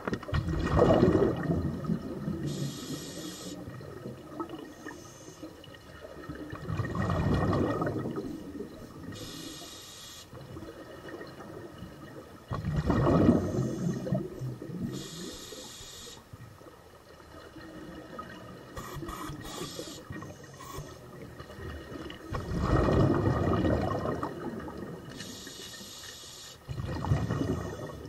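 Scuba regulator breathing underwater: five slow, bubbling exhalations, with a short hiss from the demand valve on the inhales between them.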